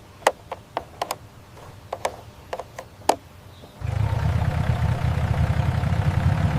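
A dozen or so sharp clicks, then a low engine rumble starts about four seconds in and runs steadily.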